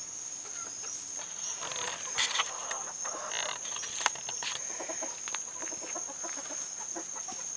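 Backyard hens clucking quietly, over a steady high-pitched chorus of crickets, with a few light knocks.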